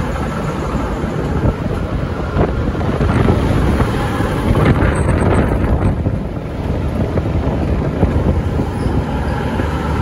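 V/Line VLocity diesel railcars rolling slowly past as the train pulls out, under heavy wind buffeting on the microphone.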